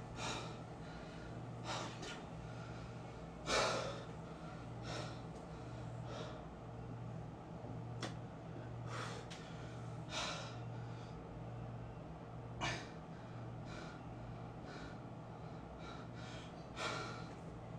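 A man breathing heavily close to the microphone, panting with a loud breath every second or two, over a steady low electrical hum.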